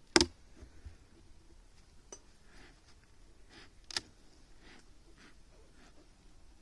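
A sharp knock right at the start, then scattered light clicks and rustling, with a second sharp click about four seconds in: hands handling things.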